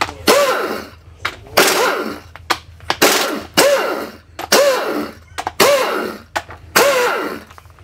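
Cordless impact driver spinning out the case bolts of a Yamaha YZF-R1 engine one after another. There are about seven short rattling bursts, roughly a second apart, and in each the motor whine rises and falls.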